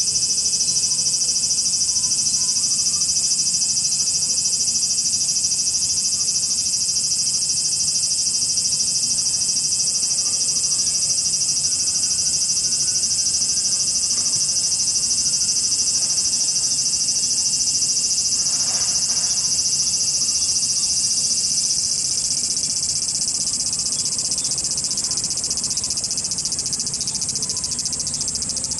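Cicadas buzzing in a loud, dense chorus: a steady high-pitched drone with a fine rapid pulse, easing a little about two-thirds of the way through.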